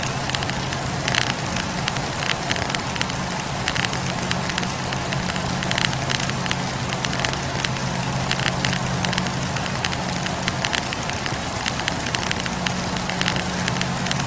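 Wood campfire crackling steadily, with many small sharp pops and snaps over a steady hiss. A steady low hum runs underneath and drops out for a couple of seconds about ten seconds in.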